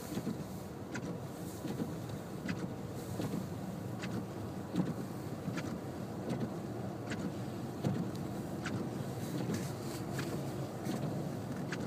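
Car running slowly through snow, heard from inside the cabin as a steady low rumble, with a short tick from the windshield wipers roughly every second and a half.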